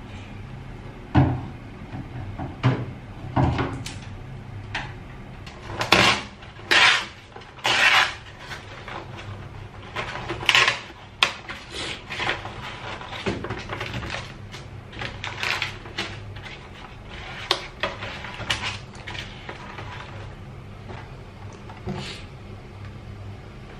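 Kitchen handling sounds: a string of short knocks, clicks and rustles as a plastic electric kettle is handled and the paper lid of an instant yakisoba tray is peeled back, with repeated sniffing. A steady low hum runs underneath.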